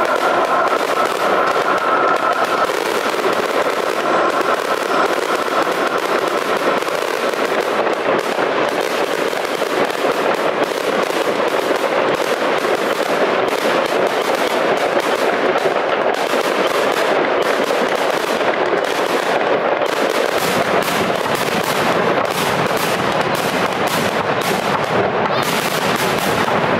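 Fireworks display: a continuous rapid barrage of bangs and crackling from aerial shells bursting overhead.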